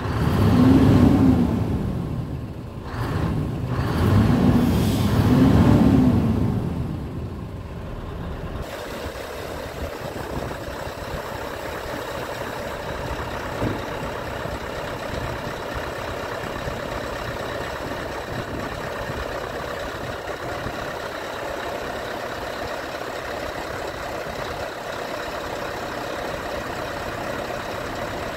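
Scania R truck's diesel engine revved up and back down a few times, heard from the cab. After a sudden change about eight seconds in, the engine and the hooklift's hydraulics run steadily while the hooklift arm is raised.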